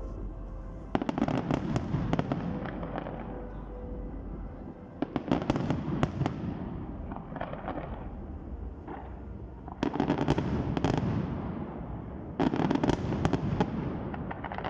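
Fireworks display: four volleys of rapid crackling bangs, about a second in, about five seconds in, about ten seconds in and near the end, each fading into a low rumble before the next.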